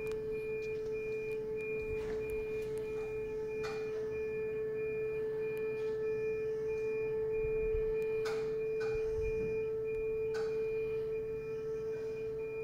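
Hydraulic lifting floor of a Schmitz trailer rising: its hydraulic pump runs with a steady, even hum. A high warning beep pulses a few times a second over it, and there are occasional light knocks from the moving deck.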